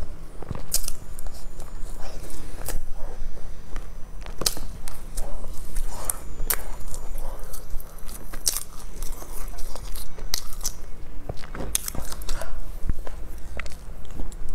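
A person biting and chewing bread, with irregular crisp clicks and crackles.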